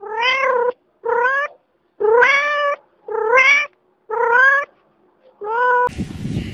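Domestic cat meowing: six separate meows, about a second apart, each rising then falling in pitch. Near the end a rough, noisy sound takes over.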